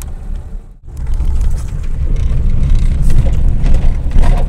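Moving car's road and wind noise: a steady, loud low rumble that drops out briefly about a second in, then comes back louder.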